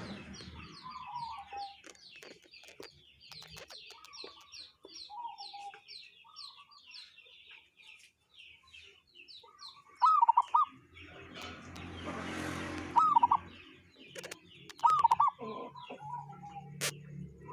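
Zebra dove (perkutut) calling: a few short bursts of quick hooked notes, loudest about ten, thirteen and fifteen seconds in, over softer lower notes. Small high chirps repeat steadily in the background for the first ten seconds or so.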